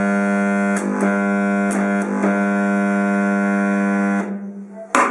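Rewound welding-machine transformer buzzing with a loud, steady mains hum, very noisy, broken by a few short crackles as the welding rod touches the work and strikes an arc. The transformer is working and welding. About four seconds in the hum stops, and there is a single sharp click near the end.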